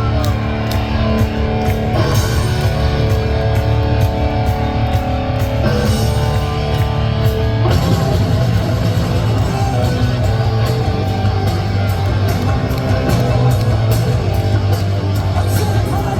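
Punk rock band playing live: distorted electric guitar chords over drums and bass in an instrumental intro, the band filling out into a denser sound about eight seconds in.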